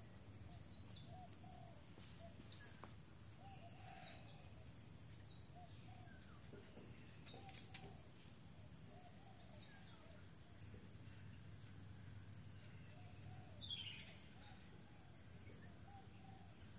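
Faint outdoor ambience: birds calling with short chirps repeated about once a second, over a steady high-pitched insect drone.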